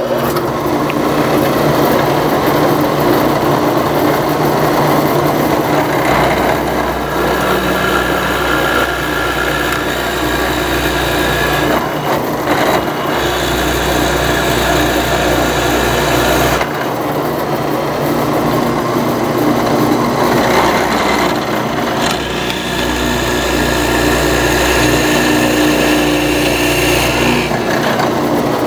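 Drill press running, its twist bit boring a dowel hole into a hardwood chair rocker; the sound of the cut shifts every few seconds as the bit is fed in and eased back.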